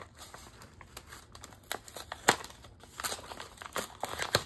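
Wrapping and packaging crinkling and rustling as a gift is pulled open by hand, with sharp crackles throughout and the loudest about two seconds in and near the end.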